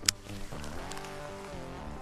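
Background music with a steady melody, and one sharp click just after the start.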